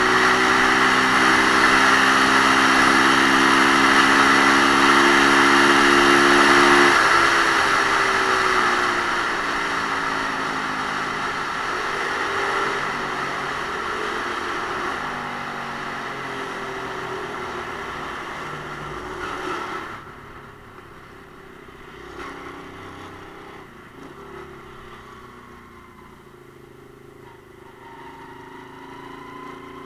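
Romet Ogar Caffe 125 motorcycle's single-cylinder 125 cc engine running under way with a rushing noise over it. The engine note holds steady for about seven seconds, then drops and wavers as the bike slows. About two-thirds of the way through the rushing noise cuts off suddenly, and the quieter engine rises in pitch again near the end.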